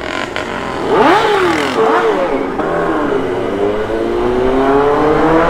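Kawasaki superbike's inline-four engine accelerating hard from low speed. Its pitch rises and drops twice in quick arcs about a second in as it shifts up, then climbs steadily through the next gear.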